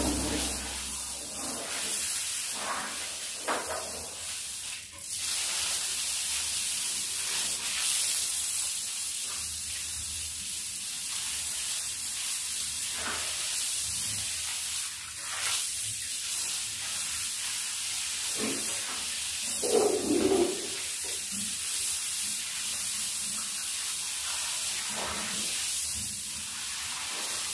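Water running steadily from a hose, a constant hiss, with scattered knocks and scrubbing sounds of bathroom cleaning and a louder clatter about twenty seconds in.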